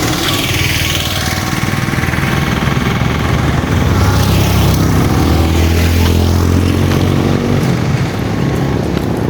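Motor vehicle engine running on the move along a busy road, with other traffic rushing past. One pass comes just after the start and another around the middle, when the engine hum also grows louder for a few seconds.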